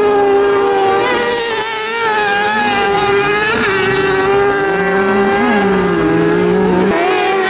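Speedcar Wonder buggy's engine running at high revs as it drives round a dirt track. It holds a steady high note, with the pitch dipping and recovering a couple of times.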